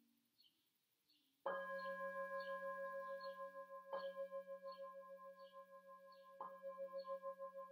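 Hand-held metal singing bowl struck three times with a mallet, about two and a half seconds apart. Each strike rings on in a layered tone that wavers in a slow pulse.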